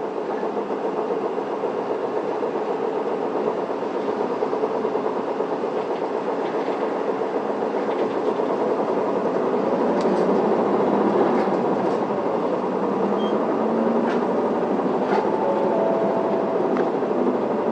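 Isuzu Elga diesel city bus heard from inside the cabin, pulling away and picking up speed: steady engine and road rumble that grows louder over the first ten seconds, with a few faint rattling clicks.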